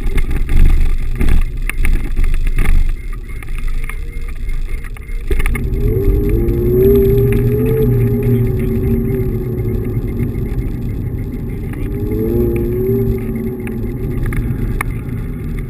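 Xiaomi M365 Pro electric scooter riding: for the first few seconds the frame rattles and knocks over paving stones, then on smooth asphalt the hub motor's whine rises as it speeds up, eases, and rises again near the end, over a steady low rumble.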